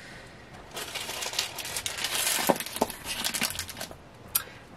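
Crinkling of a thin plastic jewelry bag being handled, starting about a second in and lasting about three seconds, with a couple of small clicks in the middle.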